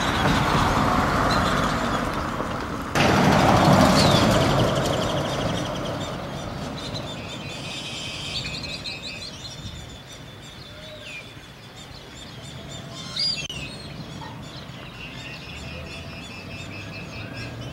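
Small birds chirping and trilling throughout. A rushing vehicle noise is loud for the first few seconds, jumps up about three seconds in, then fades away.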